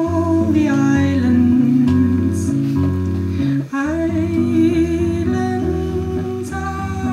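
Live music: a woman singing long held notes that swoop up at their start, over chords played on a Hohner keyboard. A new sung phrase begins about four seconds in.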